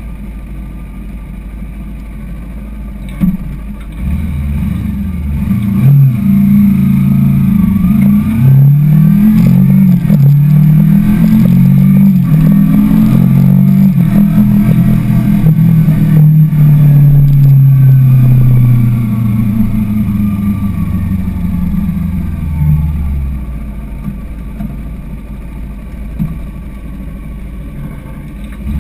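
Kawasaki sport motorcycle engine idling, with a sharp knock about three seconds in, then pulling away and revving up through several gear changes in steps. It holds a steady cruise for several seconds, then the engine note falls away as the bike slows, settling back to idle near the end.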